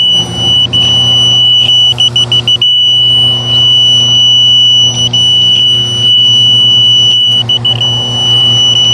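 An oil-water interface probe's reel sounding a loud, steady high-pitched tone while the probe is down in the water of a monitoring well. The tone breaks into quick stutters a couple of times. Under it runs the steady low hum of the vacuum extraction truck's engine.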